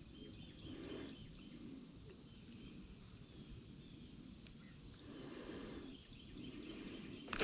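Faint outdoor ambience on a calm lake from a small fishing boat, with soft low swells of sound about a second in and again around five to six seconds in.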